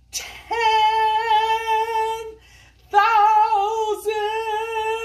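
A woman singing two long held notes on the same pitch with a slight wobble, after a quick breath; the second note is longer, about three seconds.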